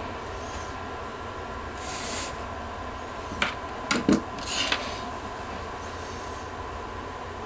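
Desktop PC running with a steady low hum and whir from its fans and power supply. A short hiss comes about two seconds in, and a handful of sharp clicks and knocks a little past halfway.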